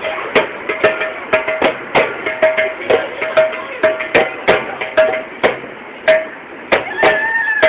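Music with a steady beat: sharp percussive hits about twice a second, with a short repeated note between them. A wavering higher tone comes in near the end.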